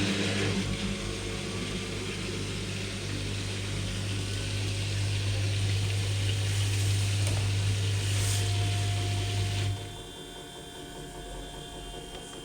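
Kuppersbusch WT 6508.1 built-in washer-dryer running: a steady hum over a rushing, water-like noise that stops abruptly about ten seconds in, leaving a faint steady tone.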